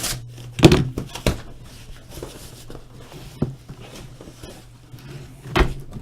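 A large cardboard case and boxed helmets being handled: several sharp thumps, the loudest just under a second in, with rustling and scraping of cardboard between them.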